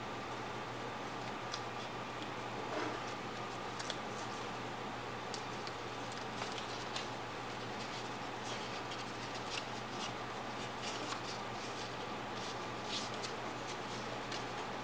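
A sheet of paper being folded and creased by hand, giving scattered short crinkles and ticks over a steady background hiss and low hum.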